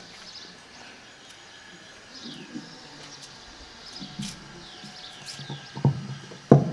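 Small birds chirping and twittering in short, repeated sweeping notes. Two dull knocks come near the end, louder than the birdsong.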